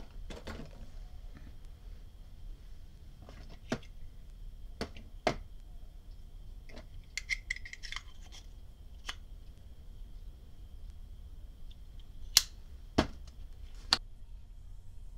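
Small metal parts of a vintage Storm King petrol lighter being handled and fitted back together: scattered light clicks and taps, a short scrape of metal on metal about halfway through, and three louder sharp knocks near the end.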